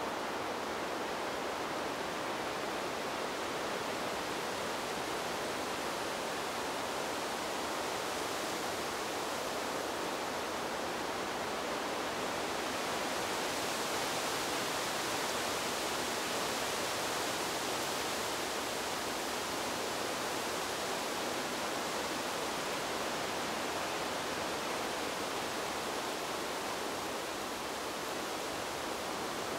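Wind sound effect laid over FPV flight footage: a steady rushing hiss with no motor whine, growing a little brighter about halfway through.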